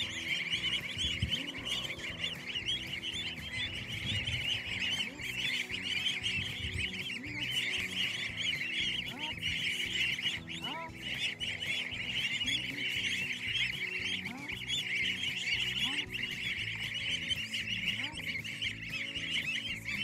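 A crowd of goslings peeping continuously, many high, rapid calls overlapping into one unbroken chorus.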